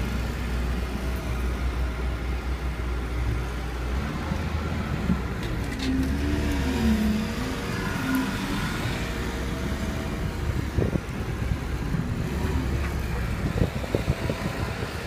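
Engine of a homemade off-road buggy on large knobby tyres, running as it drives through snow, its revs rising and falling near the middle. A few sharp knocks near the end.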